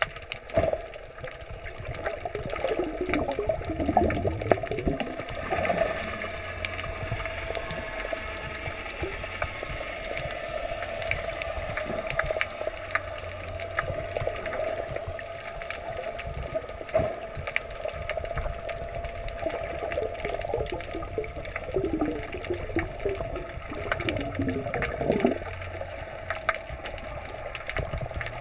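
Muffled underwater sound picked up through a GoPro housing: a steady hum, most likely a boat engine carrying through the water, with bubbling gurgles about three to five seconds in and again past twenty seconds.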